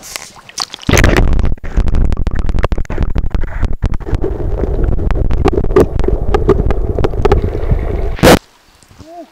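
Stream water rushing and gurgling around a camera held underwater, a deep muffled rumble with frequent knocks from handling. It starts about a second in and cuts off suddenly near the end.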